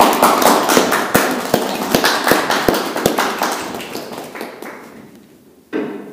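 Small audience applauding, the clapping thinning out and dying away after about four seconds.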